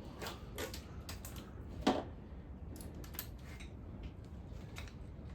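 Hand tools clicking and clinking against metal parts during an engine teardown, with one sharper knock about two seconds in, over a low steady hum.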